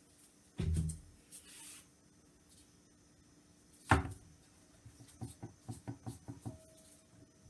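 Handling knocks on a wooden soap cutter as a loaf of cold process soap is set in place: a dull thump near the start, one sharp knock about four seconds in, then a quick run of light clicks and taps.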